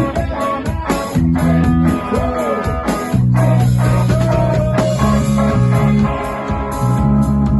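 A live rock band playing: guitar over bass guitar and drum kit, with the bass changing notes every second or so.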